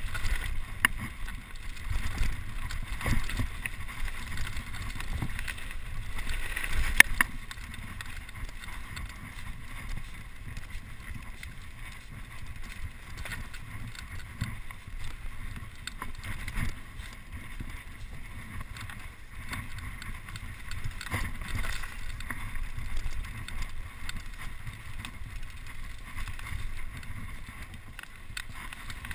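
Mountain bike riding downhill on a rough dirt trail: wind buffeting the camera's microphone in a steady low rumble, with the bike's frame and components rattling and knocking over bumps. The ride is rougher and louder over the first several seconds, with a sharp knock about seven seconds in.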